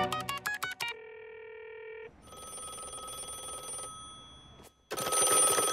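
Quick run of beeps as a push-button telephone is dialled, then a steady tone. A telephone then rings, faint at first and much louder from about five seconds in.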